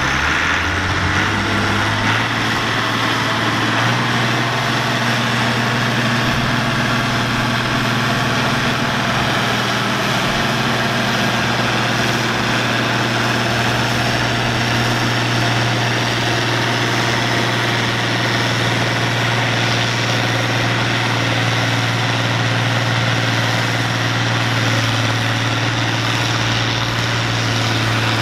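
Allis-Chalmers farm tractor engine working under load as it pulls a weight-transfer sled. Its note climbs over the first few seconds, then holds steady and even.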